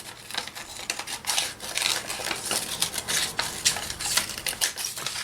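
Scissors snipping through paper in a quick, irregular run of small clicks.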